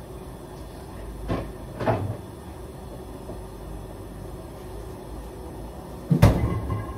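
Household kitchen knocks over a low steady hum: two light knocks, then a louder clunk near the end with a brief ring after it, like a cupboard door or cookware being handled.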